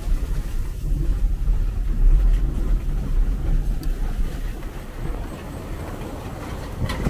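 Car driving, heard from inside the cabin: a low rumble of engine and tyres on a rough road, easing off about five seconds in.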